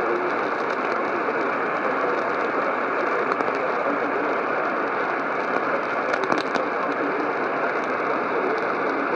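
Radio static: a steady, muffled hiss from a radio receiver carrying no programme, with a faint crackle about six seconds in.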